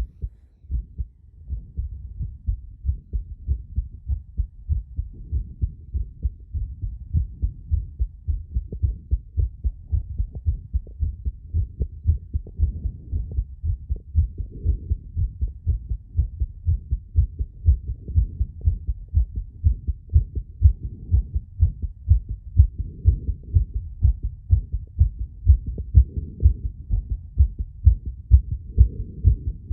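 Human heart sounds picked up by a phonocardiogram sensor: a rapid, even train of low heartbeats that grows louder over the half minute.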